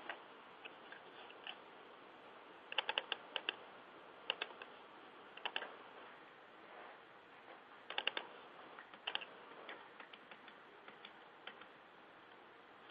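Faint typing on a computer keyboard: short flurries of key clicks, busiest about three seconds in and again about eight seconds in, with lighter scattered taps between.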